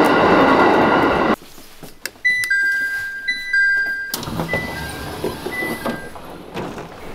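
Train carriage running noise, a loud rumble that cuts off after about a second and a half. Then an electronic two-note door chime sounds twice at the push-button passenger door, and the door opens to a rush of station noise.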